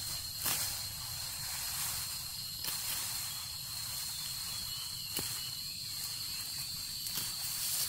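Outdoor ambience of insects droning steadily at one high pitch over a hiss, with four light knocks scattered through.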